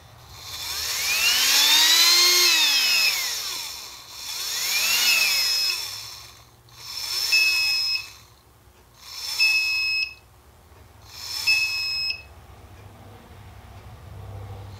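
Brushed DC motor from a Milwaukee M12 rotary tool, fed from a bench power supply, whirring up in pitch and back down. Each time it draws too much current on startup the supply beeps, shuts down and restarts: five cycles about two seconds apart, the first whir long, the later ones shorter and hissier, each ending in a beep.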